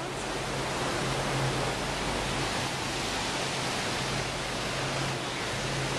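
Steady rush of a fast whitewater river running over rocks.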